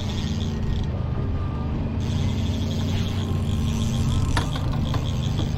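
Boat motor running steadily, with a rapid high ticking over the hum and one sharp click about four seconds in.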